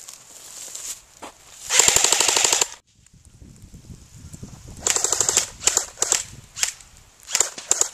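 Airsoft guns firing: a rapid full-auto burst of evenly spaced shots lasting about a second, loudest of all, then after a pause a shorter burst about five seconds in followed by scattered single shots.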